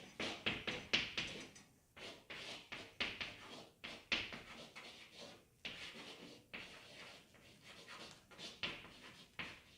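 Handwriting: a pen or marker scratching across a writing surface in quick irregular strokes, several a second with short pauses between words.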